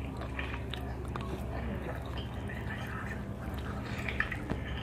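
Faint mukbang eating sounds: small wet clicks and crackles as a crab shell is pulled apart and its roe is eaten, over a low steady hum.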